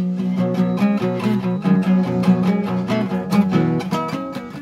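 Nylon-string classical acoustic guitar played in a steady rhythm, strummed and picked chords of a 12-bar blues.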